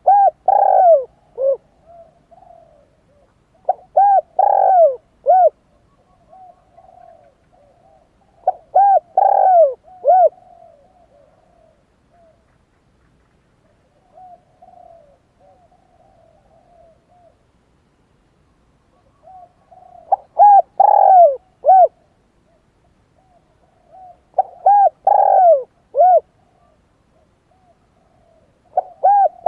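A dove cooing, the Khmer lolok. Loud phrases of several rounded coo notes come about every four to five seconds, with softer, quieter cooing between them. In the middle there is a longer lull of only the soft notes.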